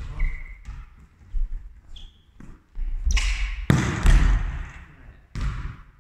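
Volleyball being struck and bouncing on a hard gym floor: a series of sharp slaps and thuds that echo in a large sports hall, loudest between about three and four seconds in.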